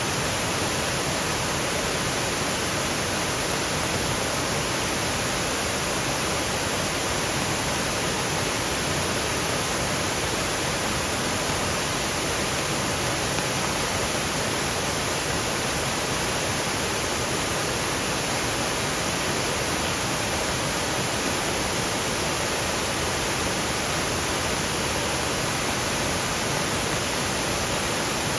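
Waterfall rushing over rocky ledges: a steady, even rush of water.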